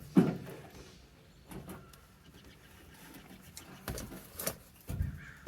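Scattered clicks and knocks of a hand tool working the small fasteners on a fuel sender cover. One louder knock comes just after the start, with a few lighter clicks following.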